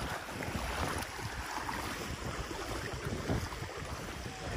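Lake water sloshing as people wade through it, with wind buffeting the microphone.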